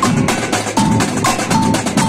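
Samba batucada drum ensemble playing a fast, dense rhythm: deep surdo bass drums under rapid strokes on smaller stick-played drums, with short high ringing notes recurring over the drumming.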